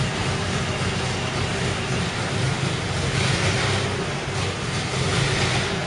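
Engine of a tracked self-propelled gun running steadily at idle with a low rumble, after being brought back to life with fresh oil and new batteries.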